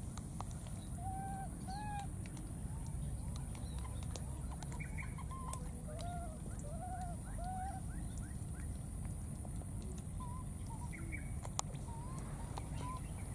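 Short, arching animal calls, given two or three at a time with pauses between.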